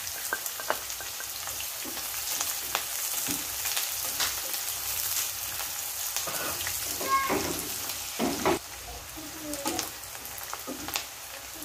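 Sliced onion and chopped garlic sizzling in rendered pork fat in a pan, with a spatula stirring and scraping against the pan in scattered clicks. The sizzle eases a little after about eight seconds.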